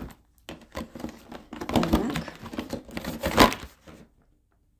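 Cardboard advent calendar box being pried and torn open by hand: a run of rustling, scraping and tearing card for about three seconds, loudest near the end, then it stops.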